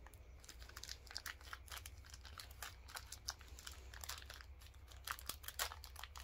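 Snack cake wrapper crinkling as it is handled, a faint scatter of irregular crackles.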